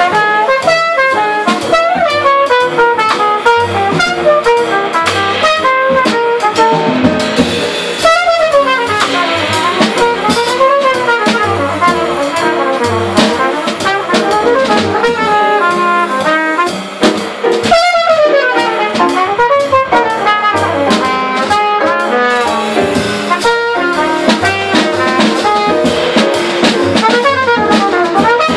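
Live small-group jazz: a cornet plays a solo of quick, winding runs over a drum kit and upright bass.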